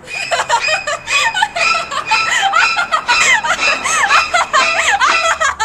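A young woman giggling, high-pitched and rapid, in quick squealing rises and falls.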